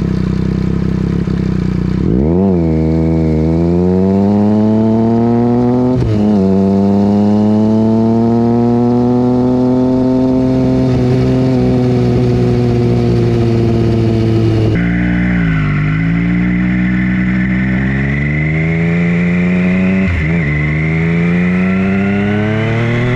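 Triumph Street Triple's inline three-cylinder engine pulling hard under way, its pitch climbing in each gear and dropping back at upshifts several times, with steady wind and road noise.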